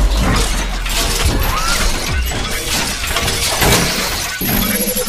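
Animated logo-intro sound effects: a deep low rumble under dense crackling, shatter-like hits, with a pitched tone joining near the end.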